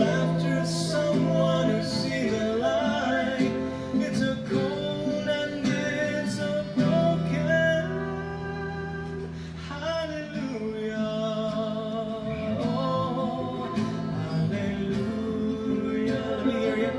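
Live music: a man singing a slow ballad, accompanied by acoustic guitar.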